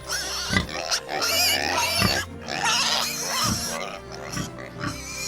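Pigs making high, wavering calls over background music.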